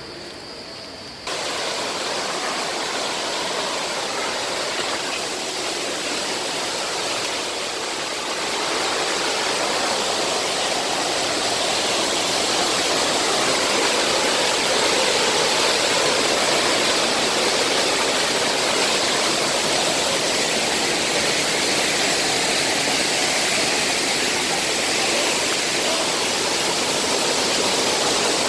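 Waterfall: the steady rush of falling water, cutting in abruptly about a second in and growing a little louder partway through.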